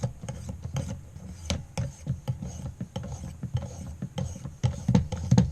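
Ceramic stone stroked along a knife blade clamped in a guided sharpening system: repeated scraping strokes with irregular clicks and knocks of the stone rod and clamp, the loudest knocks near the end.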